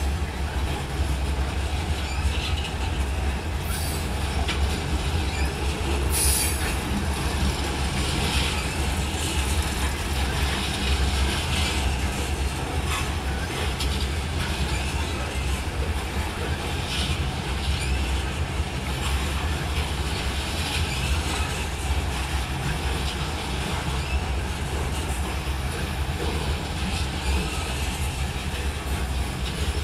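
Freight train of covered hopper cars rolling past at close range: a steady low rumble of steel wheels on rail, with brief high-pitched wheel squeals a few times in the first several seconds.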